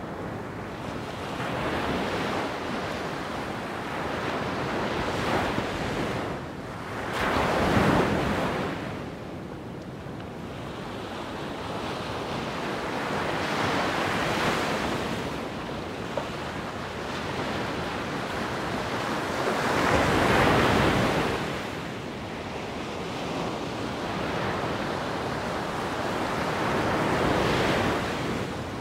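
Wind buffeting the microphone in slow gusts that swell and fade every several seconds, the strongest about eight and twenty seconds in.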